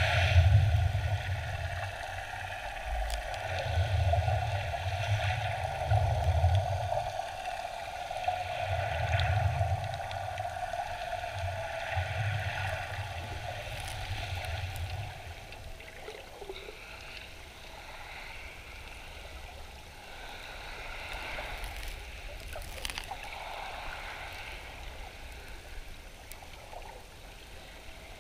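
Sea water heard from under the surface: muffled surges of waves washing over every few seconds, with a steady underlying hum and a few small clicks. After about 16 s the surges stop and it settles to a quieter, even wash.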